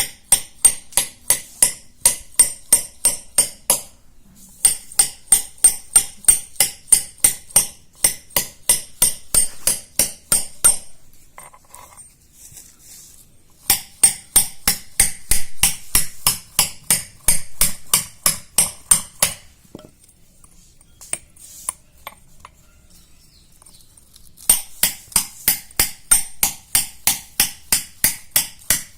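Metal hammer tapping rapidly and steadily, about three strikes a second, each with a bright metallic ring, pecking small holes into the face of a shil pata stone grinding slab to roughen it again. The tapping comes in runs, with a short break about four seconds in, another near the middle and a longer break late on.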